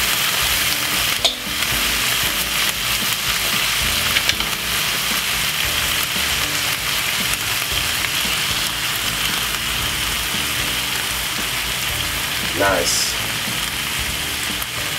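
Browned minced beef and onions sizzling steadily in a frying pan over a low flame as bottled bolognese sauce is poured in. A couple of sharp knocks come early on.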